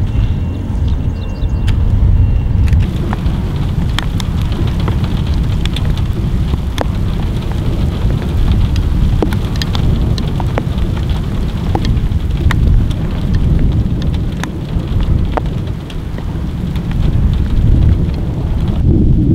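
Thunderstorm: a continuous low rumble of thunder under steady rain, with scattered raindrops ticking close by. The rain hiss comes in about three seconds in.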